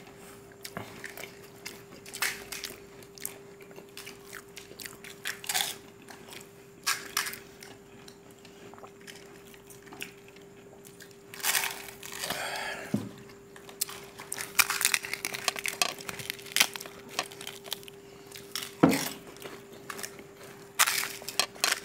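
Crisp, hollow pani puri (golgappa) shells cracking and crunching as they are broken open and bitten, with chewing, in irregular crunches and clicks. A faint steady hum runs underneath.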